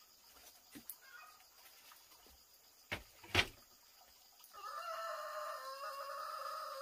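A rooster crowing once: one long held call beginning a little past halfway. Two sharp knocks come just before it, about three seconds in.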